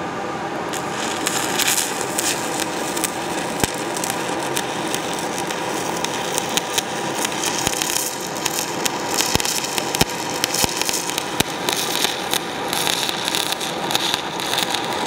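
Stick-welding arc on aluminum plate, run with a 4043 aluminum electrode: a steady crackling hiss with frequent sharp pops.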